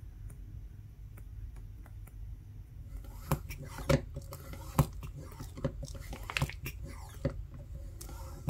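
Faint light clicks as the phone's glass back is pressed down by hand, then, from about three seconds in, a plastic vacuum bag around the phone crinkling and crackling in irregular sharp snaps, over a low steady hum.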